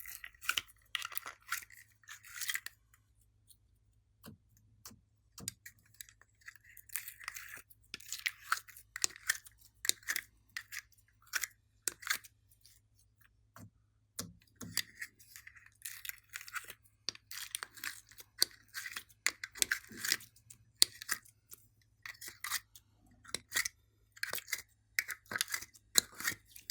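Slime being squeezed and worked by hand: irregular runs of sticky pops, clicks and crackles from air pockets in the slime, in bursts with short pauses between them.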